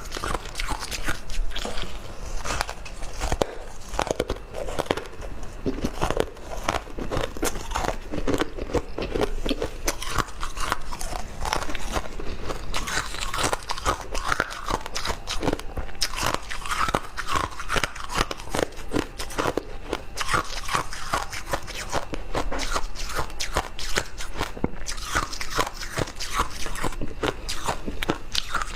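A person biting and chewing ice and freezer frost, a fast, dense run of crisp crunches that keeps on without a break.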